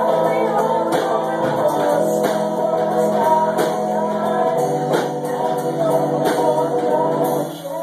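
Small live band playing a song: electric guitar, drum kit keeping a steady beat and a sung lead vocal. The music drops away briefly near the end.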